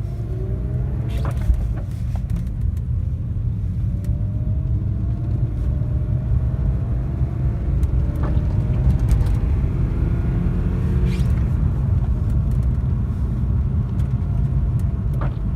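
1995 BMW E36 M3's straight-six engine and drivetrain under acceleration, heard from inside the cabin. The engine pitch rises several times in a row, as through gear changes, over a heavy low road rumble.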